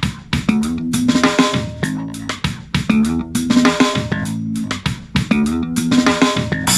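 Music playing from an XDOBO Prince 1995 II Bluetooth speaker: a song with drum kit and guitar, its phrase repeating about every second and a half.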